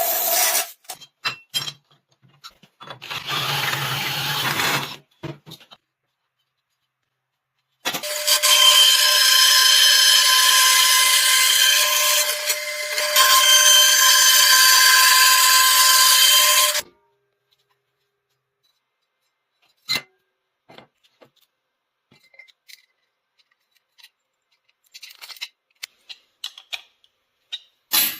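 A power tool running steadily for about nine seconds, with a steady whine. Clicks, scrapes and taps of handling work come before and after it.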